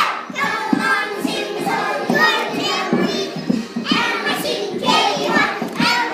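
Music playing with a group of young children singing along.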